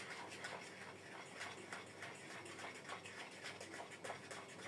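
A utensil beating pancake batter in a bowl, faint steady knocks and scrapes against the bowl about three times a second.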